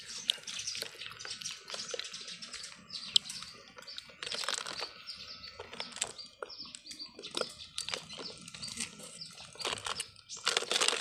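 Hair-cutting scissors snipping in irregular, quick sharp clicks.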